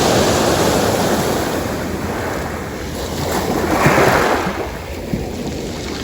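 Ocean surf washing in, with one wave swelling and breaking about four seconds in before the wash fades.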